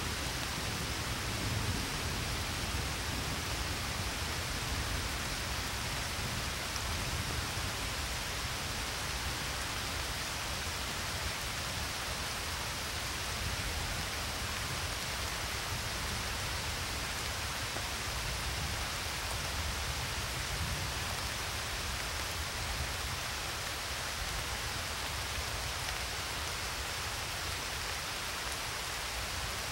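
A steady, unchanging hiss like rain, with a low rumble beneath, serving as the noise bed that masks subliminal affirmations.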